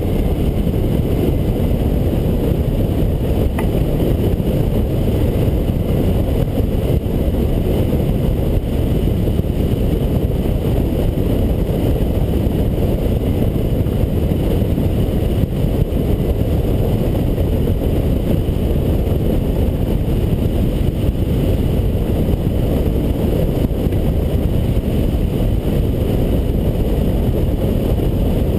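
Steady rush of wind over the microphone as a weight-shift microlight trike glides with its engine shut off and the propeller stopped.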